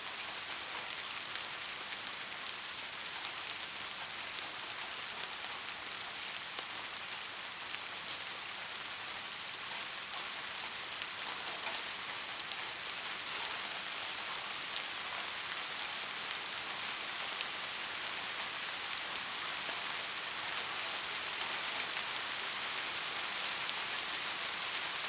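Steady rain falling: an even hiss of rain on a surface, dotted with faint ticks of individual drops.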